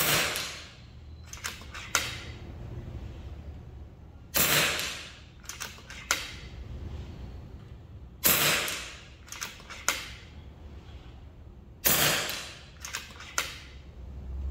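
FX Crown MK2 .22 PCP air rifle fired four times, about every four seconds, each shot a sharp crack with a short fading tail. Each shot is followed a second or two later by two small sharp clicks, typical of the side-lever being cycled to chamber the next pellet.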